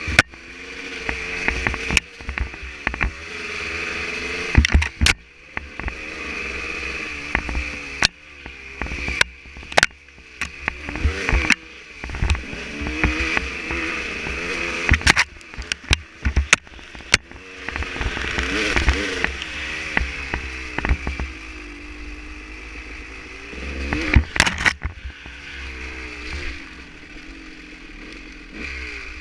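Dirt bike engine revving up and down with the throttle as it climbs a rough trail, with many sharp knocks as the bike jolts over bumps.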